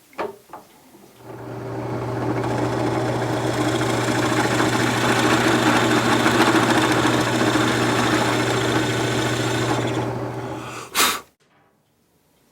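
Drill press motor starting, spinning up over about a second, then running with a steady hum before it stops with a sharp click near the end.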